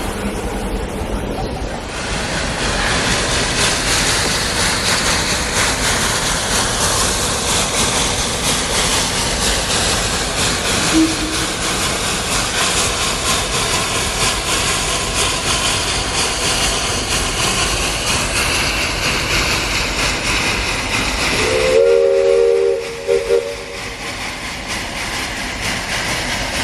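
Narrow-gauge steam locomotive letting off a steady, loud hiss of steam, with a brief low whistle toot about halfway through. Near the end the hiss stops and a multi-note chime whistle sounds a few short blasts.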